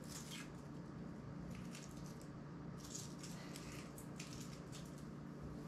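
Faint, irregular scratchy rustles and small clicks of fingers picking at and handling an ASUS ZenFone smartphone's plastic casing during disassembly, over a steady low hum.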